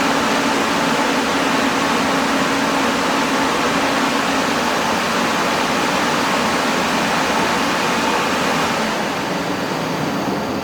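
Ingersoll Rand R7.5i 10 HP rotary screw air compressor running: a loud, steady rushing noise with a faint low hum, easing slightly near the end.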